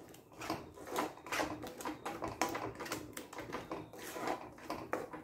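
Wooden spatula stirring a thick chutney paste in a metal kadai, scraping and knocking against the pan in quick, irregular strokes.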